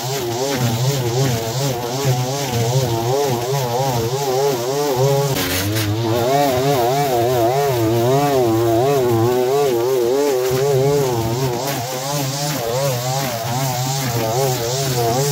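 Petrol string trimmer engine running at cutting speed, its pitch wavering up and down as the nylon line bites into long grass and the operator swings the head. The sound shifts abruptly about five seconds in.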